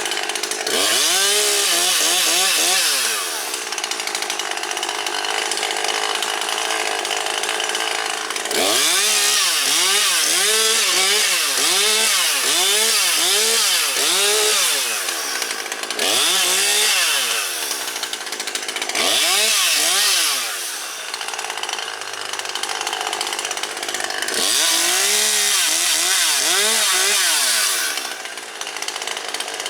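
Husqvarna 540XP Mark III two-stroke chainsaw cutting wood in five bursts at full throttle, the longest about seven seconds. The engine pitch rises and falls over and over during the cuts, and it drops back to idle between them.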